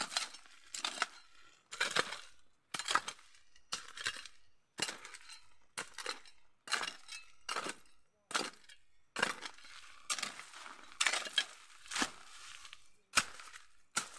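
A hoe chopping into soil again and again, about one or two sharp strokes a second, while digging out a konjac tuber.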